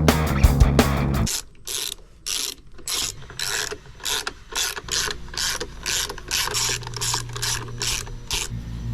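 Hand ratchet wrench being worked back and forth, a quick run of ratcheting clicks at about two to three strokes a second, tightening fasteners on a pool pump motor. Background music plays for about the first second before the clicking starts.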